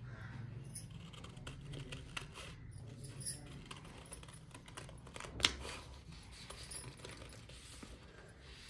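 Scissors cutting through chart paper: light snips and paper rustling, with one sharper click about five and a half seconds in.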